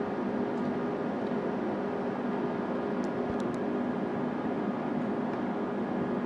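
Steady hum and whir of running electronic test instruments, with several steady tones under an even hiss, and a few faint clicks about three seconds in.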